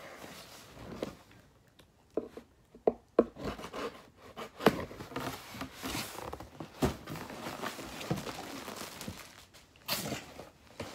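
Cardboard shipping box being handled and opened: flaps scraping and knocking, with plastic packaging crinkling as an item is pulled out. Irregular scrapes and knocks, the sharpest about 3, 5, 7 and 10 seconds in.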